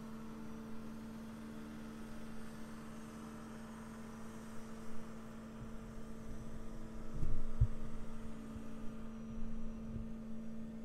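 Steady, even-pitched engine hum of heavy equipment at work, a boom crane truck lowering a precast concrete septic tank with a backhoe standing by. A few dull low thumps come about seven to ten seconds in.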